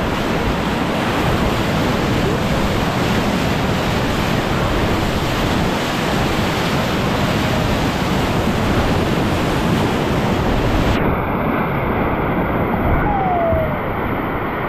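Loud, steady rush of whitewater from a river rapid. About eleven seconds in it turns suddenly muffled.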